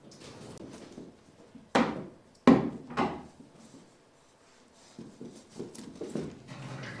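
A few sharp knocks and thumps on wood as a capuchin monkey and a cat scramble and play around a wooden playhouse. Three bangs come in quick succession about two seconds in, the middle one loudest, followed by a patter of softer knocks near the end.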